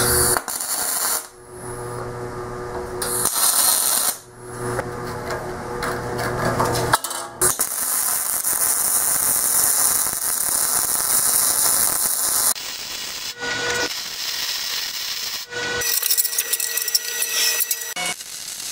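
Fronius TransSteel 2200 MIG welder, running .030-inch solid wire under C25 gas, welding a steel plate to a steel pipe. The arc runs in several bursts of one to five seconds, with short pauses between them.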